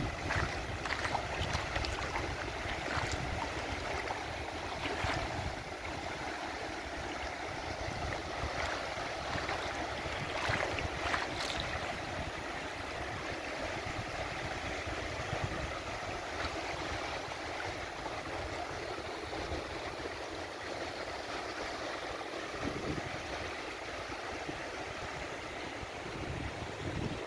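Shallow sea surf washing steadily over the sand, with wind buffeting the microphone.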